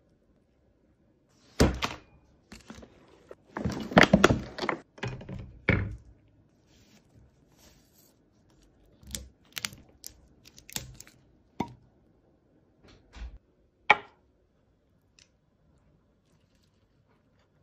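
Close-up handling sounds: a cluster of loud knocks and clacks about two to six seconds in, then scattered sharp taps and clicks.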